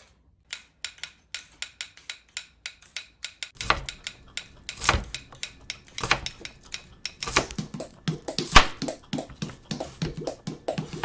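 Homemade fruit-and-vegetable percussion. It opens with a vegetable peeler worked against a carrot in a steady rhythm of short strokes, about three a second. About three and a half seconds in, more players join with knife chopping on a cutting board and other fruit and vegetable instruments, building a louder, layered groove.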